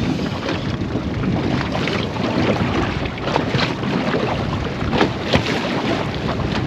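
Small aluminium tinny on the water: a steady wash of water and wind noise against the hull and microphone, with many short sharp knocks and splashes scattered through it.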